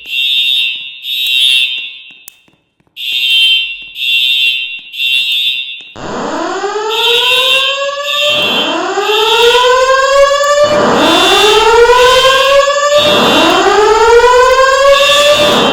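Building fire alarm sounding, with short high-pitched beeps in groups of three. About six seconds in, a rising whoop tone joins and sweeps upward about every two seconds while the beeps continue.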